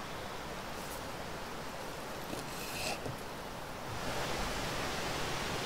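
Steady background hiss with a few faint clicks. It gets louder and brighter about four seconds in.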